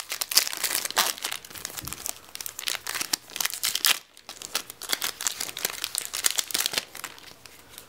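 Foil wrapper of a Yu-Gi-Oh! Photon Shockwave booster pack crinkling as it is torn open and the cards are pulled out, a dense run of sharp crackles with a brief pause about four seconds in.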